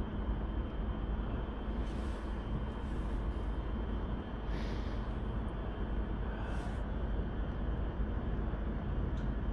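Steady low rumbling outdoor background noise, with a few brief soft hisses about two, four and a half, and nearly seven seconds in.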